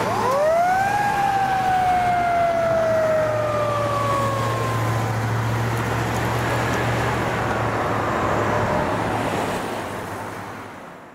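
Fire truck's mechanical Q-type siren spinning up fast at the start, then winding down in a long, slowly falling wail. A steady low drone of traffic and engines runs underneath, and the whole sound fades away over the last couple of seconds as the apparatus moves off.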